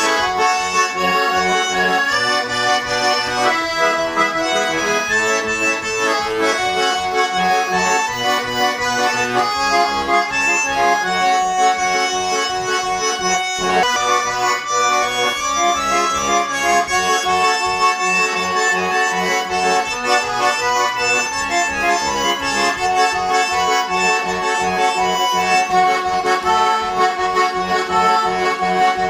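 A freshly tuned Shuya Chaika-2 garmon, a Russian button accordion, played as a tune: changing melody notes over a steady, regular bass-and-chord accompaniment. It is being played to show the instrument's sound after repair and tuning.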